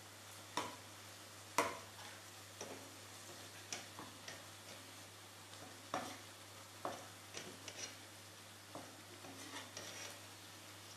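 Gram-flour pakoras frying in hot oil in a wok: a faint hiss with about a dozen irregular sharp clicks and taps scattered through it.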